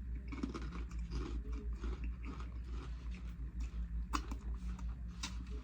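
A person chewing food close to the microphone, with wet mouth sounds and a few sharp smacks or clicks near the end.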